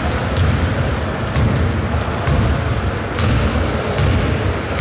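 A basketball dribbled on an indoor court, making repeated low thuds. Sneakers squeak on the floor in two long squeals in the first two seconds and a short one about three seconds in.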